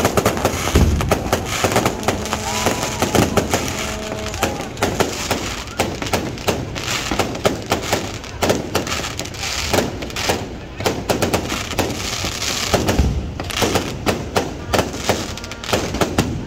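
Aerial fireworks display: a dense, unbroken run of sharp cracks and pops from shells and crackling stars bursting overhead. Two heavier, deeper thuds stand out, about a second in and again about three quarters of the way through.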